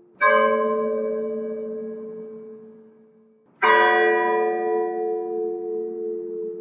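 A single church bell tolling slowly as a funeral toll: two strokes about three and a half seconds apart, each ringing out bright and then fading into a long, low hum.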